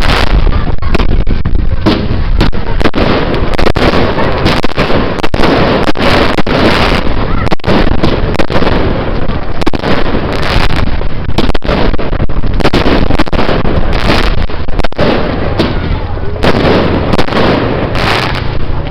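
Large open bonfire burning loudly, with a steady rush and many irregular sharp crackles and pops, and crowd voices mixed in.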